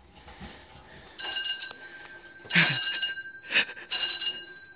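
Tricycle handlebar bell rung three times, about a second and a half apart, each ring lingering as it fades.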